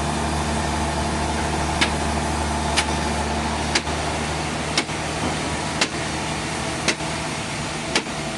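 An engine running steadily at a constant pitch, with a sharp click about once a second.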